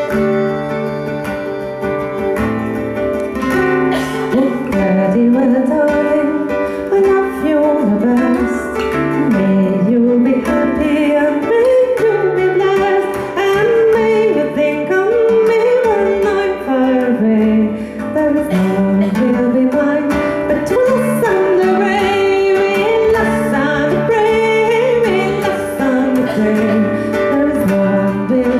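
Live Irish folk song: a woman singing over acoustic guitar and fiddle.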